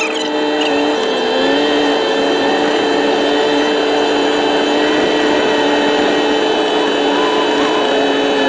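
Vehicle engine running at a steady speed: a constant drone with a held whine, without pauses.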